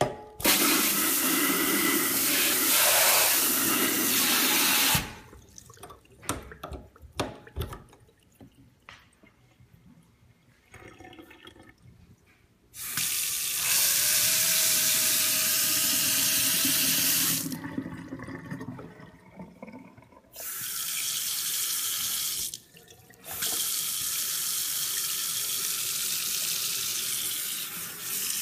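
Pull-out kitchen faucet running a stream of water into a stainless steel sink, turned on and off several times so the water runs in stretches of a few seconds. In the first pause, about five seconds in, there are a few sharp clicks and knocks.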